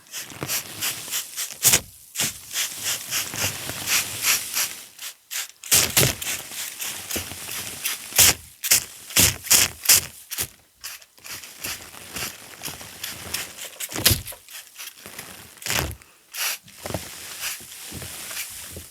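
Sand being worked close to the microphone for ASMR: irregular scratching and crunching strokes, some much sharper and louder than others, with a soft hiss between them.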